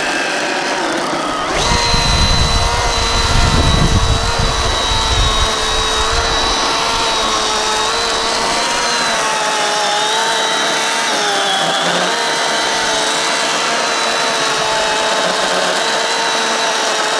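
Milwaukee M18 Fuel cordless electric chainsaw running at full speed and cutting through a fallen tree trunk: a steady high motor whine with chain noise. It steps up about a second and a half in, and its pitch sags briefly a few times midway as the chain loads in the cut.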